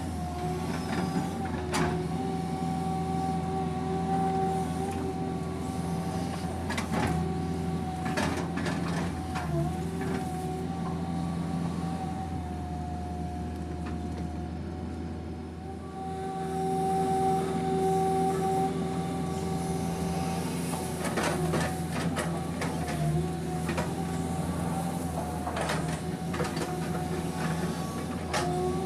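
PC200 hydraulic excavator running under load while digging a ditch in peat, heard from inside the cab: a steady engine drone with a constant whine over it. It eases off for a few seconds around the middle and then comes back louder. Scattered knocks and clanks from the arm and bucket are spread through it.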